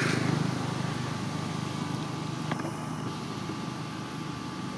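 A steady low motor hum, easing down slightly in the first second, with a single sharp click about two and a half seconds in.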